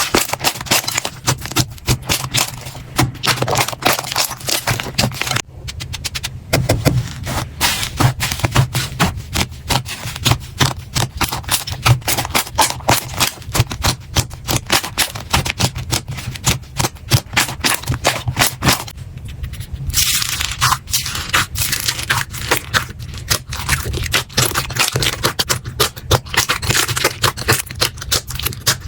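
Slime being squeezed and pressed by hand, giving dense, rapid crackling and clicking pops, typical of crunchy slime. The sound breaks off briefly about five seconds in and again near nineteen seconds, then resumes.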